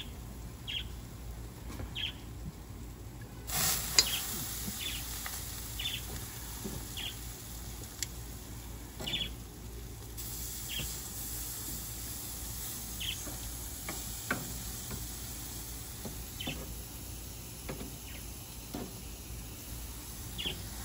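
Pork belly sizzling on a barbecue grill, a steady hiss, with a few sharp clicks of metal tongs on the grate, the loudest about four seconds in. A bird chirps every second or two in the background.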